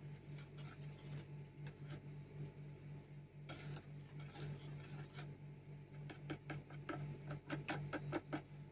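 A spoon clicking and scraping against a plastic mixing bowl as a thin batter of coconut milk and cornstarch is stirred to dissolve the starch. The clicks come irregularly, more often in the second half, over a low steady hum.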